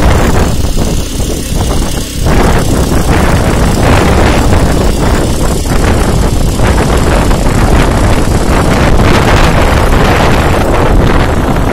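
Small petrol engine of a hydraulic power pack running steadily as it drives a rail-welding tool through its hoses; it gets louder and harsher about two seconds in.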